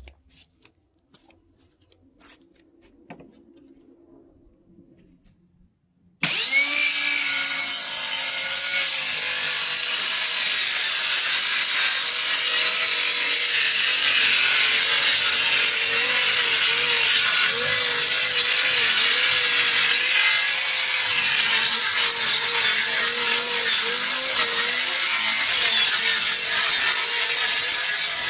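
Bauer 20V cordless 6-1/2 inch circular saw cutting through OSB. After a few faint handling clicks, the saw starts abruptly about six seconds in and runs loud and steady, its motor pitch wavering slightly under the load of the cut.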